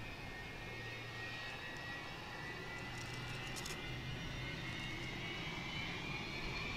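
McDonnell Douglas MD-83's Pratt & Whitney JT8D turbofan engines whining, the whine slowly rising in pitch and growing louder, over a low hum.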